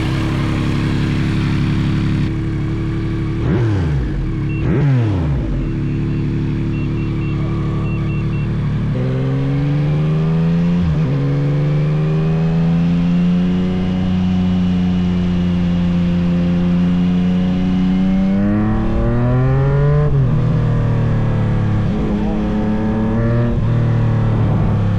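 Motorcycle engine running under load while ridden. It holds steady at first, then revs up from about nine seconds in, with pitch drops like gear changes a couple of times before rising again.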